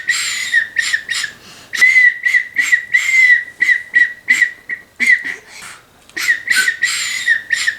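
A small plastic survival whistle, built into a compass-mirror-flashlight gadget, blown in groups of short, high, breathy toots at one steady pitch, with brief pauses between the groups.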